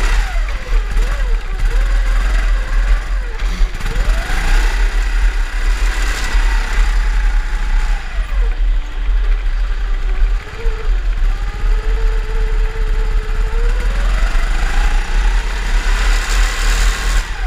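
Drift kart engine revving up and down, its pitch rising and falling again and again and sitting lowest around the middle, over a heavy low rumble.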